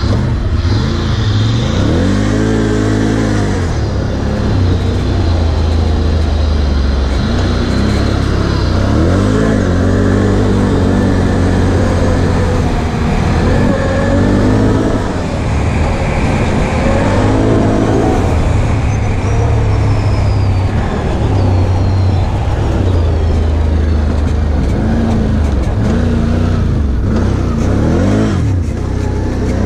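Can-Am ATV's V-twin engine being ridden hard, revving up and dropping back again and again as the rider accelerates and eases off.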